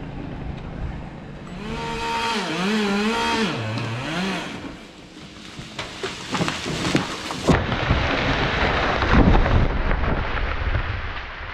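Chainsaw running hard through a cut for a few seconds, its pitch dipping and recovering under load. Then sharp cracks as wood gives way, and a long crashing rush of branches and leaves as a large poplar section falls through the canopy and lands, loudest about nine seconds in.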